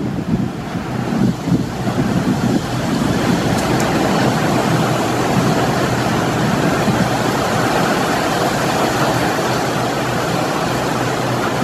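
R255 work locomotive running on elevated subway track as it pulls away: a steady low engine hum under wheel-on-rail rumble, louder from about three seconds in.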